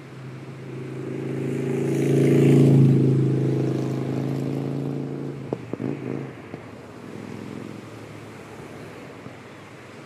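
A motor vehicle passing close by: its engine hum swells to a peak about three seconds in and then fades away over a steady wash of surf.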